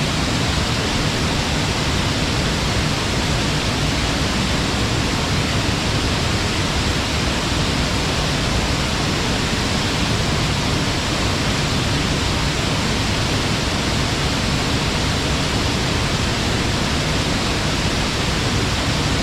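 Waterfall pouring steadily, a constant loud rush of falling water with no change throughout.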